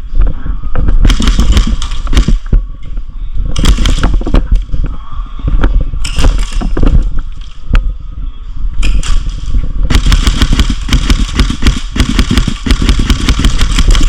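Airsoft guns firing on full auto: several runs of rapid clicking shots with short breaks between them, over heavy rumble on the helmet camera's microphone.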